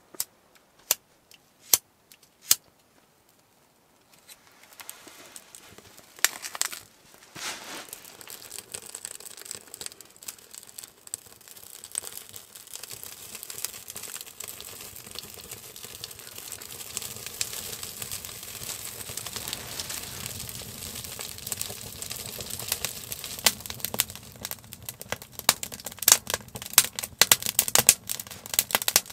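Fire being lit in a small wood stove: bark and kindling catching and crackling, growing louder and denser with sharp pops toward the end. A few sharp clicks come near the start, before the crackling begins.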